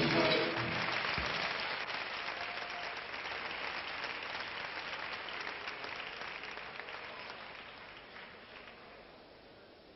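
Audience applauding as the band's music stops in the first moment; the clapping is dense at first and slowly dies away to almost nothing.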